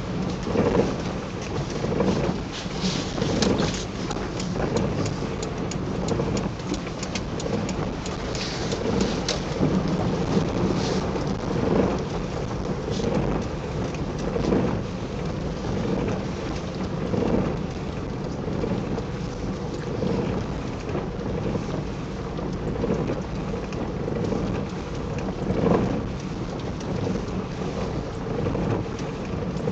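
Low rumbling road and engine noise inside a moving car, swelling every second or two, with crinkling rustles of a shiny PVC rain suit rubbing close to the microphone.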